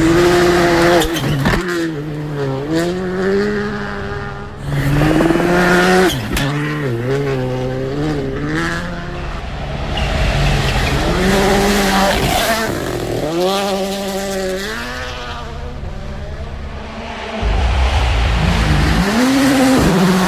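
Rally1 car's turbocharged four-cylinder engine at full attack, its pitch climbing and dropping again and again as the driver accelerates, lifts and shifts, with sharp cracks on some of the lifts. A heavier low rush comes in near the end.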